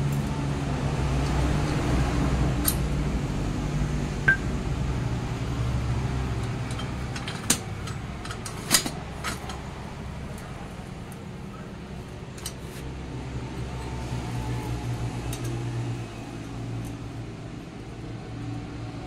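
Low motor-vehicle engine hum that swells and fades twice, with a few sharp metal clinks from small front-fork parts being picked up and set down.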